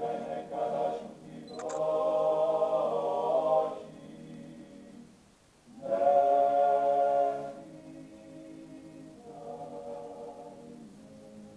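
Male klapa group singing a cappella in close harmony: long held chords that swell loud, break off briefly about five seconds in, swell again, then settle into softer sustained chords.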